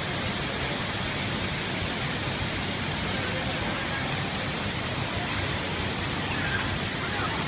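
Steady rush of the Kawasan Falls waterfall pouring into its pool, an even hiss of falling water.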